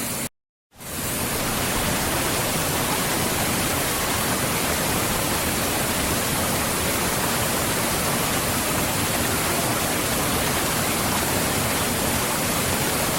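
Waterfall: a steady rush of falling water. It cuts out to silence for a moment under a second in, then fades back up and runs on evenly.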